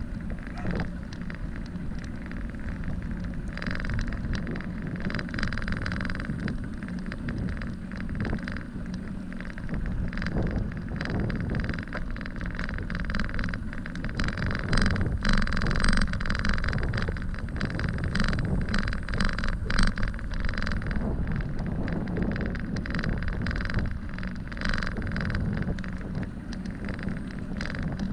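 Bicycle rolling along a paved trail: a steady low rumble of tyres and wind on the microphone, with frequent clicks and knocks from the bike. It gets louder and more knocking about halfway through.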